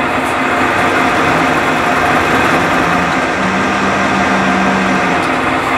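Milling machine taking a cut on a live-steam locomotive cylinder casting: a loud, steady machining noise over a low hum. A second low tone joins in about three and a half seconds in and drops out near five seconds.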